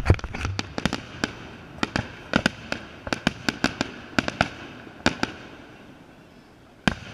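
Aerial fireworks bursting and crackling: a fast run of sharp pops that thins out after about four seconds, with a last pop near the end.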